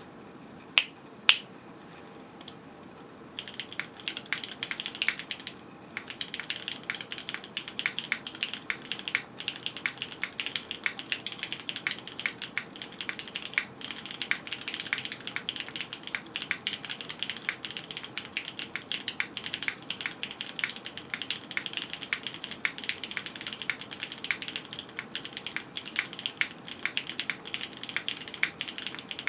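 Typing on a Ciel60 custom mechanical keyboard with lubed Cherry MX Black Hyperglide linear switches, an aluminum plate in an O-ring mount, no foam and DCX keycaps: a fast, continuous run of key clacks. It starts with two sharp clicks about a second in, and steady typing begins about three seconds in, with a brief pause shortly after.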